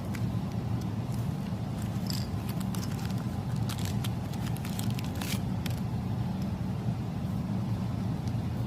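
Steady low background hum, with faint small clicks and taps of spiked rivet parts being handled and fitted into a leather collar, bunched a couple of seconds in.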